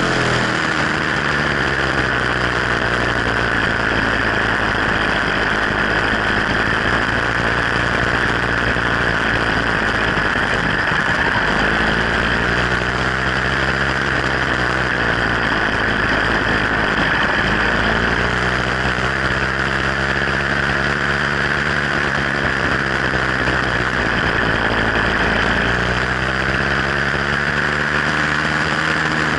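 Sky Hawk 66cc two-stroke motorized-bicycle engine running steadily under way, its pitch rising and falling several times as the speed changes.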